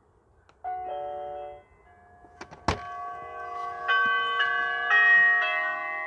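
Nest Hello video doorbell button pressed: a short electronic chime sounds, then a sharp click, then a doorbell chime plays several bell-like notes that ring on over one another.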